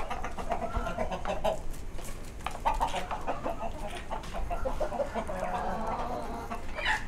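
Aseel chickens clucking in several short runs of repeated clucks.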